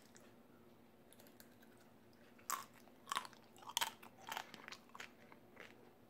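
Stainless knife and fork clicking and scraping against a ceramic plate while cutting up baked salmon, a quick run of sharp clicks starting about halfway through.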